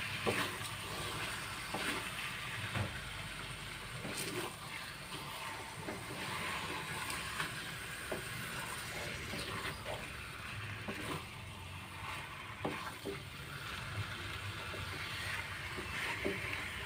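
Raw chicken pieces being mixed with spice paste in an aluminium wok, by hand and with a wooden spatula: soft wet handling with scattered light knocks against the pan, over a steady background hiss.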